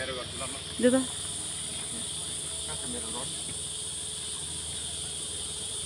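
Steady, high-pitched insect drone, an unbroken chorus with two bright pitch bands. A short voice about a second in and faint talk around three seconds sit over it.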